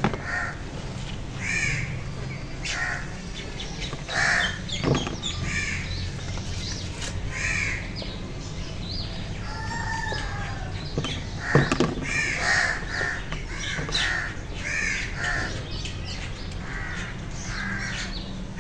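Crows cawing repeatedly, short harsh calls following one another every second or so.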